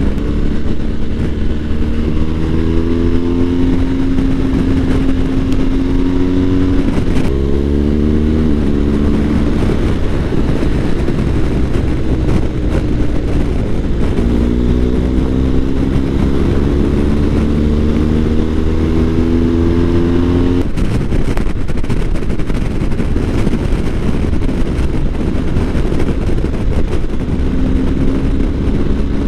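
BMW R1250 GS boxer-twin engine pulling on the open road, its pitch climbing as it accelerates, with a gear change about seven seconds in. After about twenty seconds the engine note drops away under a steady wind rush and comes back near the end.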